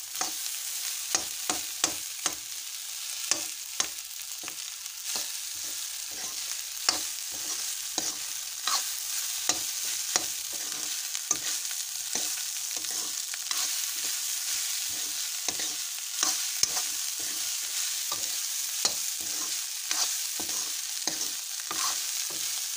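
Fried rice with carrots sizzling in oil in a pan, stirred with a metal spoon: a steady sizzle with repeated scrapes and knocks of the spoon on the pan, about two a second.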